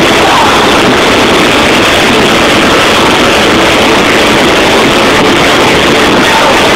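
Trance music from a club sound system, recorded so close to the microphone's limit that it comes through as a steady, distorted wash of sound.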